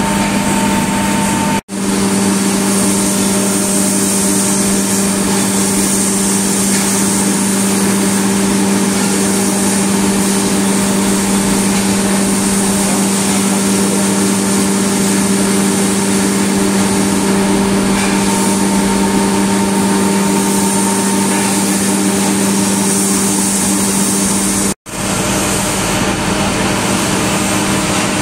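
Industrial air compressor running: a loud, steady mechanical hum with a broad hiss. The sound cuts out abruptly for a moment twice.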